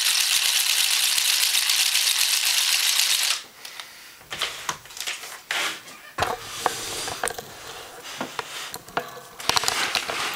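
Hand-cranked 3D-printed electro piston, a magnet piston in a copper coil driven through a 3-to-1 plastic gear, rattling rapidly as it is cranked fast. It stops abruptly about three seconds in, followed by scattered clicks and knocks of handling.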